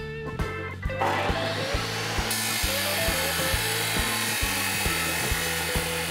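Abrasive chop saw cutting through steel: a steady, harsh grinding that starts about a second in, over background music with a steady beat.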